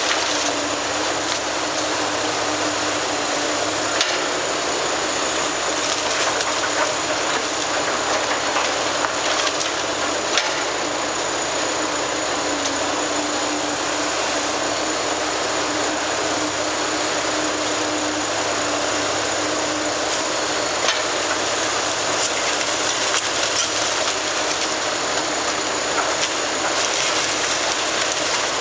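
Liebherr tracked hydraulic excavator demolishing a building: its diesel engine runs steadily under a continuous crunch and clatter of breaking masonry and falling rubble, with a few sharper knocks.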